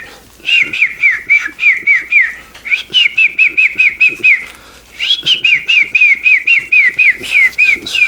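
Birdlike whistling: three quick runs of short whistled notes, each note sliding down in pitch, about four or five a second, with brief pauses between the runs.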